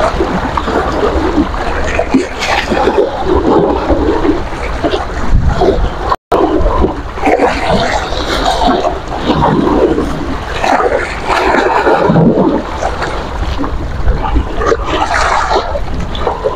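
Choppy sea waves splashing and sloshing at the shore, with strong wind buffeting the microphone. The sound cuts out for an instant about six seconds in.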